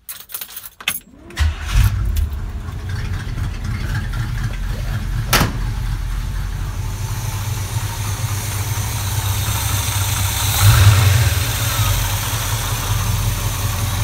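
Chevy Vortec engine cranked over by the starter, catching about a second and a half in and settling into a steady idle. A single sharp click comes about five seconds in, and the engine briefly runs louder about ten and a half seconds in.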